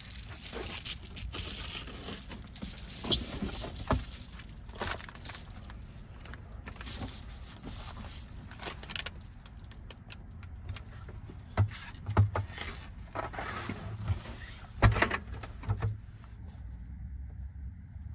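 A steady hiss of heavy rain with clattering, rustling and knocks of someone moving about. A cluster of dull thumps comes near the end, and the hiss drops away abruptly just after.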